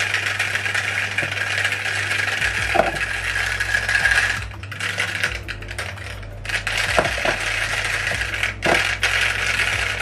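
A magnet spun fast by a homemade magnetic stirrer (a PC power-supply fan) rattling steadily against the walls of a small plastic cup of liquid detergent, over a steady low hum. The rattle eases off for a couple of seconds around the middle, then picks up again.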